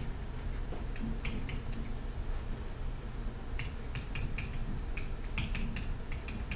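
Short, sharp clicks of a stylus pen tapping on a tablet screen while handwriting, a few about a second in and a dense run in the second half, over a steady low hum.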